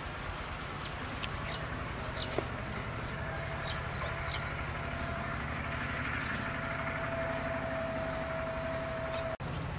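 Steady low engine hum, joined about three seconds in by a thin steady whine that stops just before the end. Scattered light clicks and crinkles of a plastic bag as hands pull apart jackfruit flesh.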